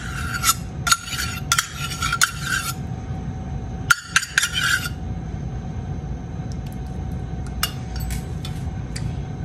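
A metal spoon scraping sour cream out of a stainless steel measuring cup, with clinks of spoon against cup. It comes in spells: about three seconds of scraping at first, a shorter spell about four seconds in, then a few light clinks near the end.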